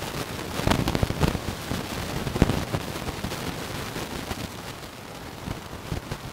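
Hosta leaves and garden plants rustling and crackling as they are pushed through. The rustling is in quick, uneven clusters, loudest in the first three seconds, then thins to a fainter rustle.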